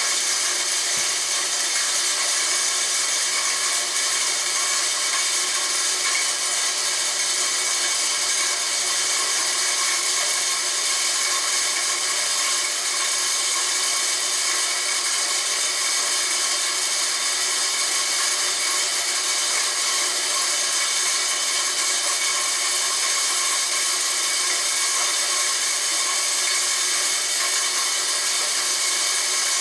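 Homemade corn grinder driven by a converted electric water-pump motor, running steadily with a high, even whine and a grinding hiss.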